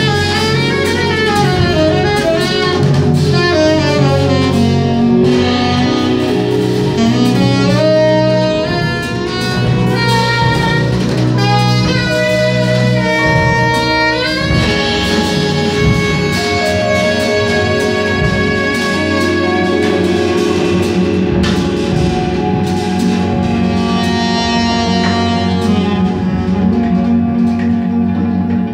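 Live jazz band: a tenor saxophone playing a slow melody over keyboards and electric bass. Gliding pitches sweep up and down in the first several seconds, then long held notes follow over a sustained low bass.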